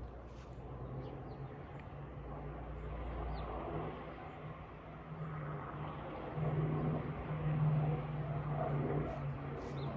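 A steady engine drone with a low pitched hum, growing louder about six and a half seconds in.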